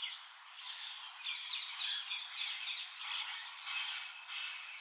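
Outdoor background chorus of many quick, high chirps from small calling animals over a faint steady hiss.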